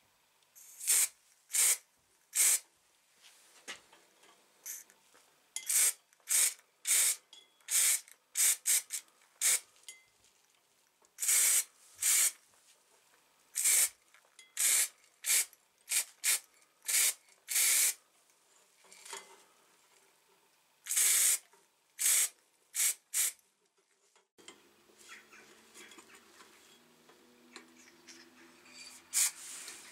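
Aerosol spray-paint can hissing in dozens of short bursts, each a quarter to half a second, in quick runs with brief pauses, as paint is sprayed onto small metal parts.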